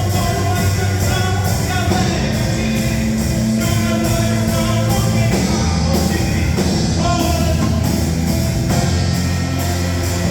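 Rock-style Christian worship music: a full band with bass and drums, with singing.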